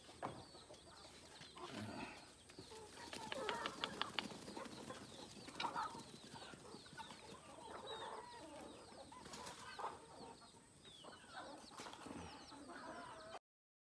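Chickens clucking faintly, with many short high cheeps from chicks throughout and a run of faint clicks about three to four seconds in.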